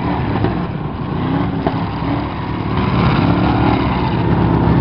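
Demolition derby cars' eight-cylinder engines running and revving, the pitch rising and falling, with one sharp knock about a second and a half in.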